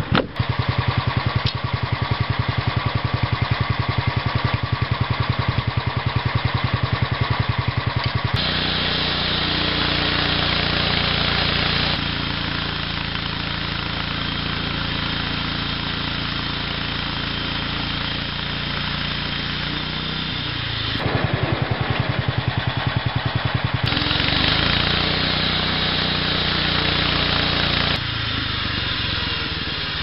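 Engine of a portable band sawmill idling with a rapid pulsing beat, then running at speed while the band blade saws through a log, with a bright hissing cut. It drops back to idle about two-thirds of the way through, then runs up and cuts again.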